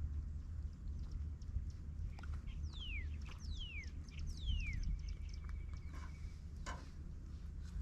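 A bird calling: three quick falling whistled notes in the middle, over a steady low rumble with scattered faint clicks.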